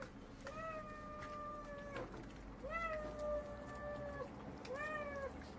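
Street cat meowing three times: two long drawn-out meows that fall slightly in pitch at the end, then a shorter one near the end.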